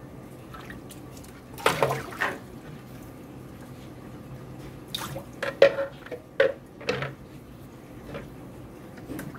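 Water poured from a small plastic dipper over a wet kitten, splashing onto it and into a concrete sink. It comes in short splashes about two seconds in and again several times between about five and seven seconds in.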